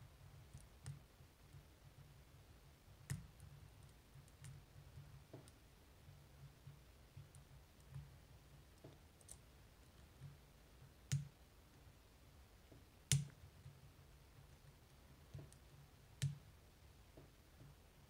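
Faint, sparse clicks of a hook pick tapping the barrel pins inside an Assa Twin 5700 lock cylinder under counterclockwise tension, working the pins up to set them. A few clicks stand out sharper than the rest.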